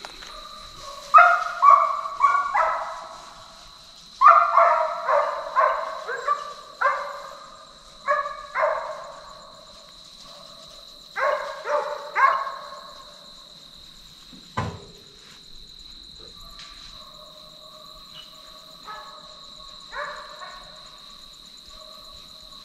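A pack of deer-hunting dogs barking and baying in repeated bursts while running a deer. The calls come in clusters, loudest in the first half, then fainter and sparser. There is one sharp knock in the middle.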